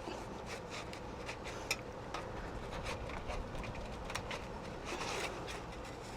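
A dull kitchen knife sawing through a crisp-bottomed flatbread pizza on cardboard: faint scraping with scattered small clicks and crackles.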